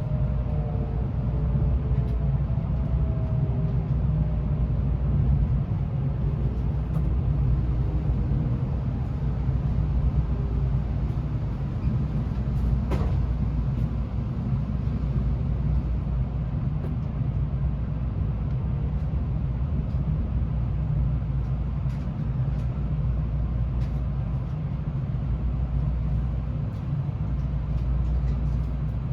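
Steady low hum inside a stationary Tokaido Shinkansen N700A passenger car, from its onboard equipment and ventilation. A few faint tones fall slowly in pitch over the first few seconds, and there is a single short click about halfway through.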